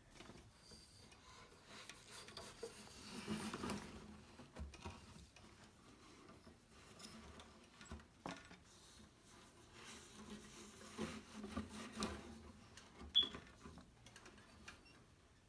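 Faint hand-weaving sounds at a wooden floor loom: weft yarn rubbing and rustling against the warp threads, with scattered light taps and clicks. One brief high squeak near the end.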